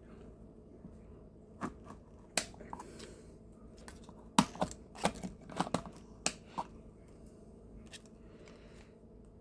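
Scattered light clicks and short crinkling rustles of hands handling a dishwasher cleaning tablet and its packaging, busiest in the middle few seconds.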